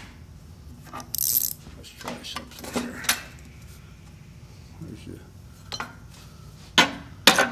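Steel gear puller and cast-iron saw parts clinking and knocking as they are handled, with a short scraping rattle about a second in and two sharp metal clanks near the end.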